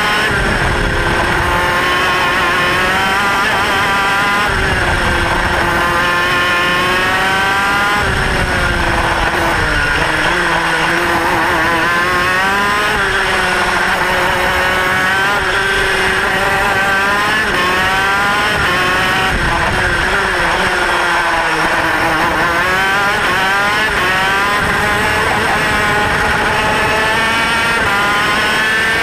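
Kart engine at racing speed, heard onboard: its pitch climbs under acceleration and drops back again and again as the kart goes through the corners.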